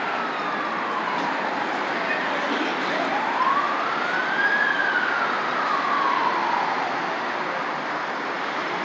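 An emergency vehicle's siren in a slow wail: the tone falls, rises again about three seconds in, then falls away. Steady traffic noise from the passing cars runs underneath.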